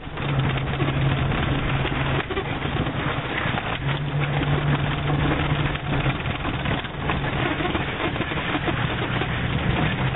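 Inside the cab of a 1990 Jeep Cherokee driving over rough dirt ground. The 4.0-litre straight-six runs with a low drone that comes and goes, over steady road and body noise, with a few light knocks from bumps.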